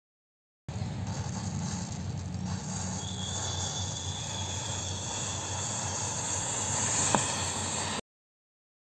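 A bundle of matches and loose match heads burning in a big flare-up, a steady rushing hiss and fizz, with a thin high whistle joining about a third of the way in. A single sharp crack near the end is the loudest moment, and the sound starts and cuts off abruptly.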